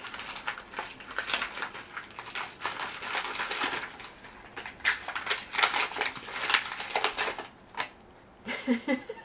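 Wrapping paper being torn and crinkled by hand in irregular rustles as a small gift is unwrapped.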